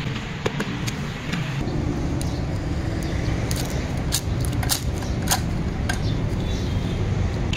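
Steady low rumble like distant road traffic, with about half a dozen sharp clacks from about three and a half seconds in, as a bundle of dry bamboo reeds is worked against a blade set in a wooden block.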